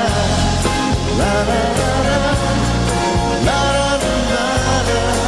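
Live band playing a pop ballad with a steady drum beat and bass, and singing over it; the melody slides up into long held notes twice.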